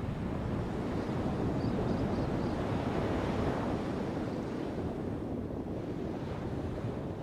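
Strong coastal wind buffeting the microphone over the rush of ocean surf, swelling a little in the middle and then easing.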